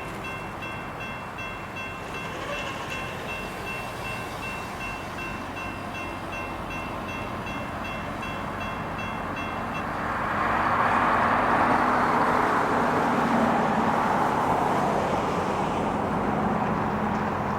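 CSX freight train rolling by. Faint steady high-pitched tones stop about ten seconds in, as the rushing rumble of the passing train grows louder.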